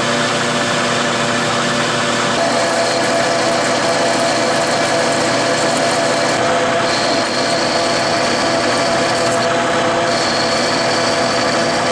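Manual metal lathe running, its cutting tool turning down an aluminium bar blank held in the chuck: a steady machine hum with gear whine. A thin high whine comes in about seven seconds in and again near the end.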